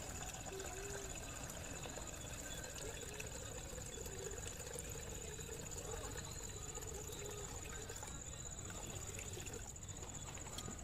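Insects trilling in one steady, high, unbroken tone, over a low even background hiss.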